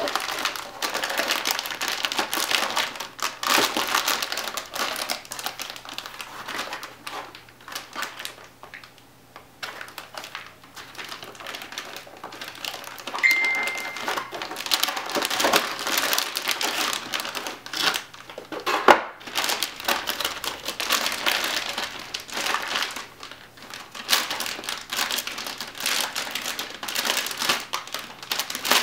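Plastic anti-static shielding bag around a motherboard crinkling and rustling as it is handled and pulled from its box, with a quieter lull a third of the way in. There is a short high tone about halfway and a sharp click shortly after.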